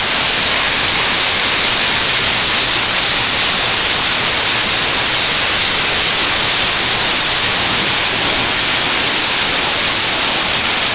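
High-pressure water jets of an automatic car wash spraying onto a car's body, a steady loud hiss that holds the same level throughout.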